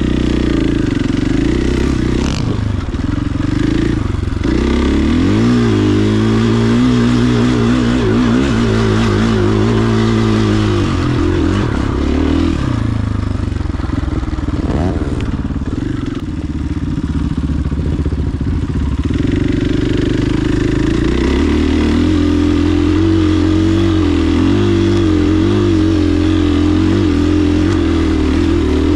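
KTM 500 XCF-W's single-cylinder four-stroke engine running under way on a dirt trail, its note rising and falling with the throttle, wavering up and down for several seconds about a third of the way in, then steadier.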